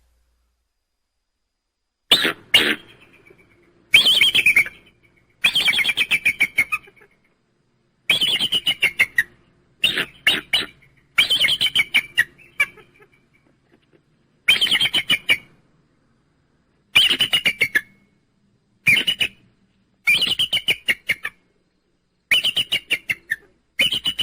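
An eagle calling: about twelve bouts of rapid, high chittering notes, each a second or so long and falling slightly in pitch, separated by silent gaps.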